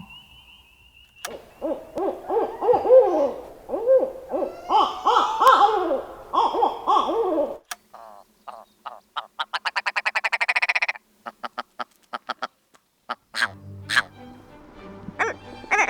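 Barred owls caterwauling: several overlapping hooting and cackling calls that rise and fall in pitch, lasting about six seconds. About halfway through, a fast, even run of short clipped pulses follows and stops abruptly, with scattered clicks near the end.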